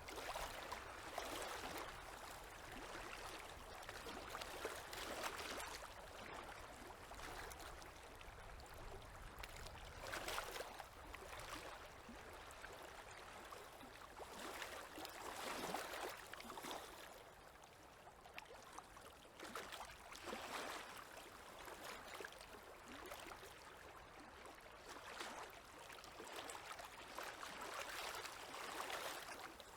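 Small river waves lapping at the shore: a soft wash of water that swells and fades every four to five seconds.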